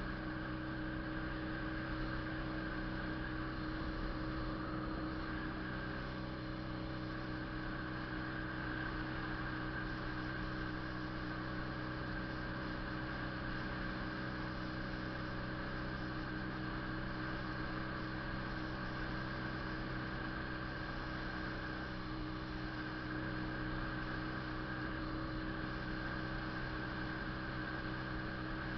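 Honda CB 400 II motorcycle's parallel-twin engine running at a steady, unchanging pitch, a constant hum with no revving.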